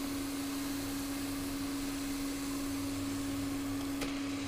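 A steady single-tone electrical hum over a faint hiss, with a small click about four seconds in.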